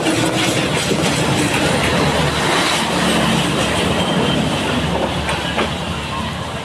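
A train running past at close range, its wheels clattering over the rails.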